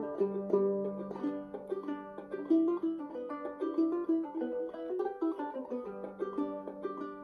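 Old-time fiddle tune played on string instruments: a quick run of short notes over a low note that is held for a second or so near the start and again near the end.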